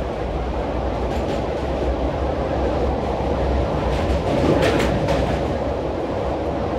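Passenger train running across a riveted steel girder rail bridge, heard from inside a coach: a steady rumble of wheels on the rails, with short clattering clicks about a second in and again around four to five seconds in.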